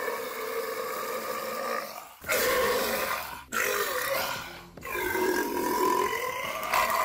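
A man's long, drawn-out burps, one after another. One runs on into the opening two seconds, then three more start at about two, three and a half and five seconds in, each lasting a second or two with a steady pitch.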